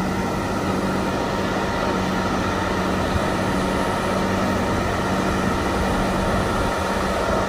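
Heavy tractor truck's diesel engine running steadily under load as it hauls a wind turbine blade up a steep, long grade, with a constant low hum.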